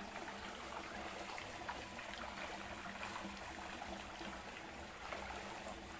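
Faint, steady running water trickling into a fish pond, with a low steady hum underneath.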